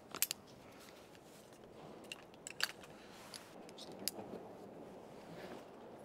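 Rope-access gear being handled: a few scattered light clicks and clinks, the loudest cluster about two and a half seconds in.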